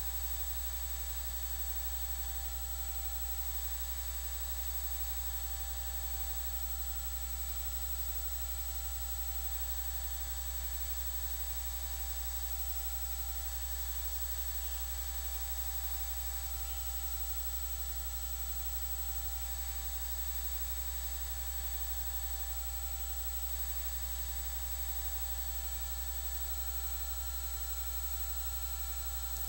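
Steady low hum with an even hiss and a few faint constant whines: electrical noise on the recording, unchanging throughout, with no other sound.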